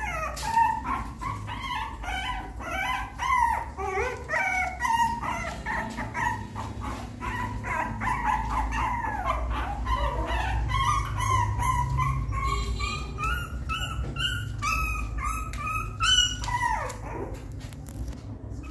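A young puppy crying and whimpering over and over in short high-pitched cries, with one long rising cry about two-thirds through. It is stuck outside its nest box and crying to get back in.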